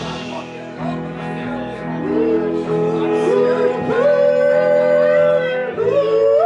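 Live band playing, with electric guitar and upright double bass; from about two seconds in, voices sing long held notes together in harmony, sliding between pitches.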